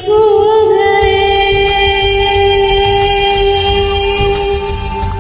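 Karaoke singing of a Hindi film song: one long held sung note, with a slight waver as it begins, over the song's backing track with a steady beat.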